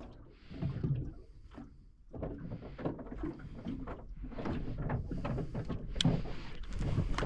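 Water lapping and slapping against a small boat's hull in irregular splashes, with a sharp knock about six seconds in.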